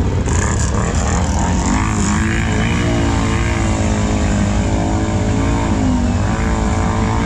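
Can-Am ATV engine running hard under throttle in mud, a deep rumble with its revs climbing about two seconds in, holding and wavering, then dipping briefly near six seconds.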